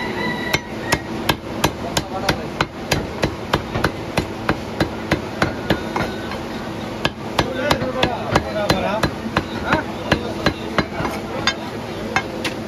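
Heavy steel cleaver chopping chicken on a wooden log chopping block: rapid, even chops at about three a second, with a short break about seven seconds in.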